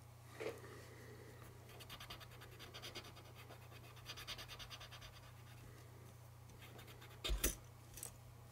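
Cotton swab scrubbing powdered graphite onto the end of a small model steel coil: a faint, rapid scratching. A couple of soft knocks come near the end as the coil is handled.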